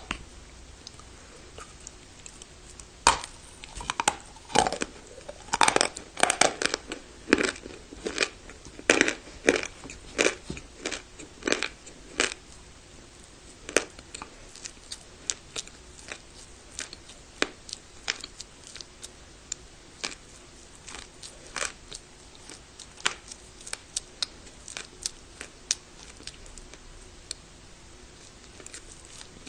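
Close-up crunching of hard baked clay (turbah) being bitten and chewed. A few seconds in comes a dense run of sharp crunches, which thins out to single crunches every second or so for the rest of the time.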